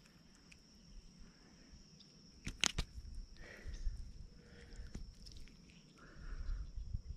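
Small handling noises as a small fish is held and unhooked by hand, with a few sharp clicks, the loudest about two and a half seconds in. A steady high-pitched insect drone runs underneath.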